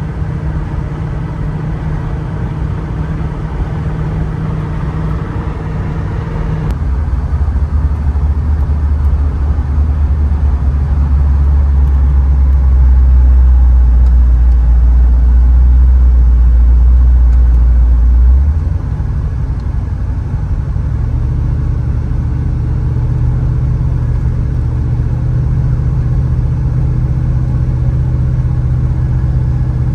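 Oldsmobile Delta 88's engine purring while the car is driven in traffic, heard from inside the cabin. About seven seconds in the tone drops suddenly to a deep drone that grows louder, then changes again about eighteen seconds in.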